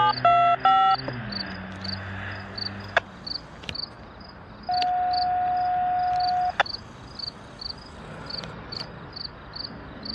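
Crickets chirping in a steady rhythm, about three chirps a second. Three short electronic beeps come right at the start, over a low hum that fades out after about three seconds, and about halfway through a single steady electronic tone sounds for about two seconds.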